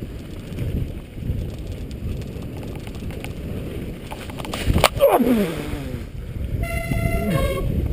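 Mountain bike tyres rumbling over a dirt forest trail, with wind on the microphone. Just before five seconds in there is a sharp knock and splash as the bike hits a deep puddle, followed by a pitched sound falling in pitch. A brief steady tone sounds about seven seconds in.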